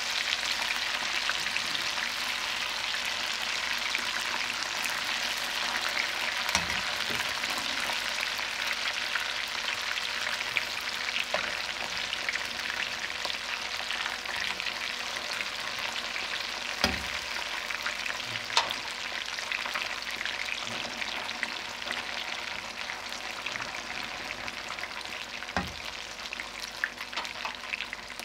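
Spice-marinated fish pieces shallow-frying in hot oil in a metal pan: a steady sizzle that eases slightly toward the end. A few sharp clicks come from metal tongs and a fork knocking the pan as the pieces are turned.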